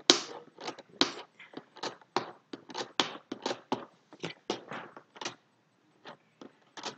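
Action figure packaging of cardboard and plastic being handled and pried at: a rapid run of crackles and clicks, several a second, thinning out after about five seconds.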